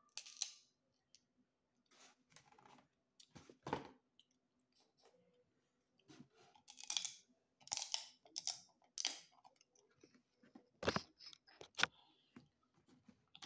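Cooked snow crab shells being cracked and broken apart by hand, with close-up chewing: a run of irregular sharp cracks and crunches, the loudest a little before the end.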